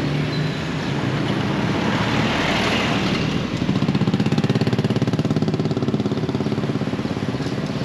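Street traffic, with a motor vehicle's engine running close by; about three and a half seconds in it grows louder and throbs rapidly and evenly.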